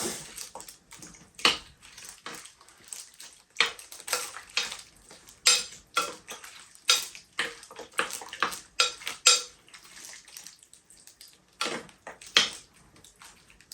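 A utensil stirring a wet chicken mixture in a slow cooker, clinking and scraping against the pot in irregular strokes.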